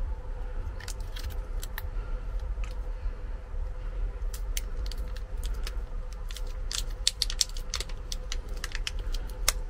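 Light, irregular clicks and rattles as hands work a tyre plug repair kit, pulling a sticky rubber plug strip off its card, over a steady low rumble.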